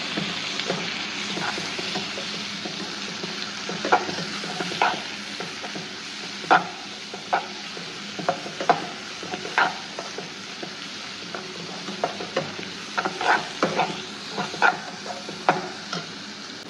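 Onions and tomatoes frying in oil in a pan make a steady sizzle. A perforated metal spoon stirring them knocks and scrapes against the pan in sharp, irregular taps, which come more often toward the end.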